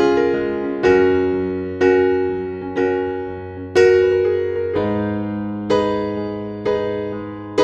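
Background music: slow keyboard chords, a new one struck about once a second, each fading away before the next.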